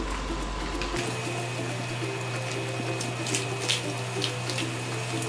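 Onions frying in oil give a steady hiss, under soft background music, with a few faint sharp scrapes a little past the middle as a knife cuts into a goat head on a wooden board.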